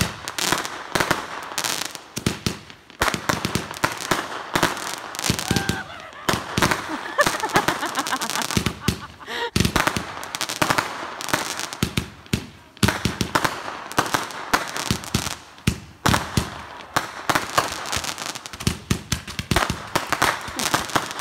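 Consumer fireworks barrage firing from the ground: a rapid, unbroken string of launch pops, bangs and crackling bursts.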